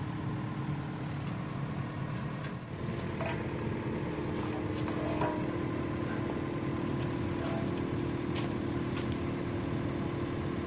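Kubota U50 mini excavator's diesel engine running steadily, with a steady hum that grows stronger a little over two seconds in and a few faint knocks.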